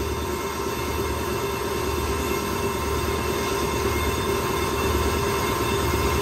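Brake lathe turning a pickup truck's brake disc, its cutting tool skimming the disc face: a steady metallic machining whine with several held tones. The disc is warped from brake heat and is being resurfaced to make it true.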